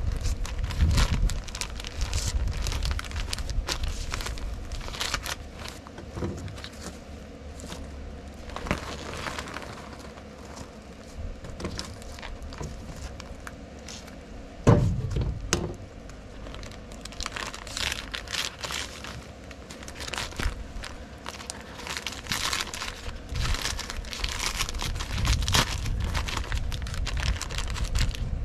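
Kraft paper facing of fiberglass insulation crinkling and rustling as it is handled and pressed flat, with one sharp knock about halfway through.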